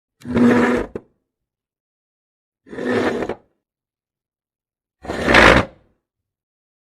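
A chair creaking three times, each a short, rough, pitched creak under a second long, about two and a half seconds apart.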